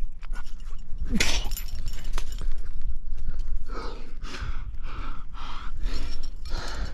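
A rock climber breathing hard while pulling through a crux. There is a loud sharp breath about a second in, then short, rapid panting puffs about twice a second from about four seconds in, over a steady low rumble.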